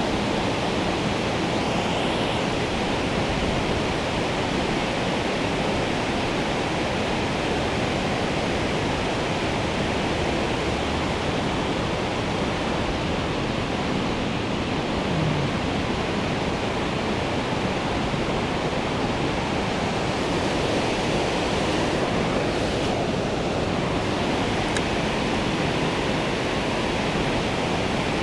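Steady rushing of river water, an even, unbroken noise.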